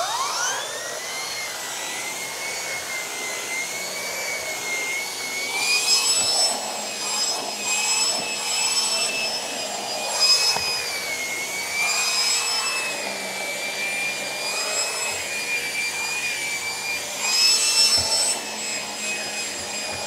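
Numatic Henry Petcare canister vacuum running with its air-driven turbo stair tool. The tool's air turbine spins up with a rising whine in the first second, then holds a steady high whine over the rush of suction air. The sound swells louder a few times as the tool works the stair.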